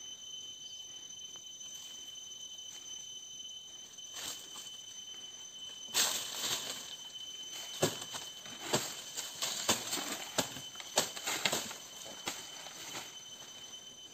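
Dry, dead palm fronds rustling and crackling as a climber pushes through them high in the tree. A dense run of sharp crackles starts about six seconds in and dies away a couple of seconds before the end.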